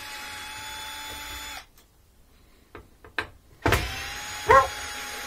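Cordless drill-driver backing out the screws that hold a front-loading washer's front panel: a steady motor whine for about a second and a half, a pause with a couple of light clicks, then a second run with a loud, brief squeak in the middle of it.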